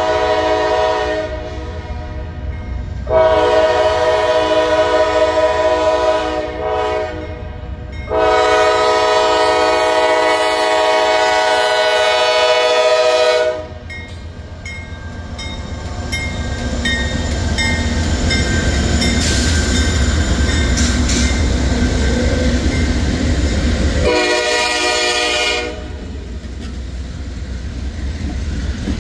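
Norfolk Southern freight locomotive's air horn sounding a chord in four blasts at a grade crossing, the third and longest lasting about five seconds. Between the later blasts, the lead diesel locomotives rumble past with wheels clattering on the rails.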